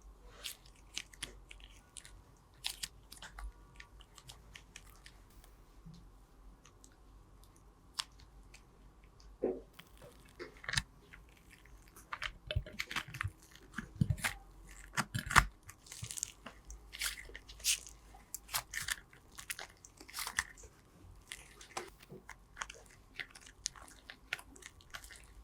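Slime being squeezed and worked by hand, giving short sticky clicks and crackles that come sparsely at first and much more often from about ten seconds in.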